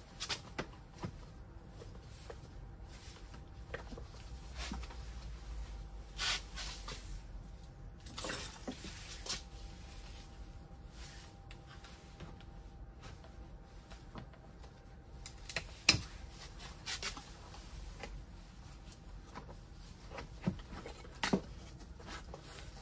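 Scattered light clicks, knocks and rustling as gloved hands work around an electric scooter's battery pack and wiring in its open deck, with one sharper knock about 16 seconds in.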